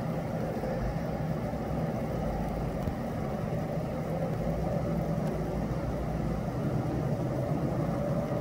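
Steady low outdoor rumble with a faint, even hum running through it.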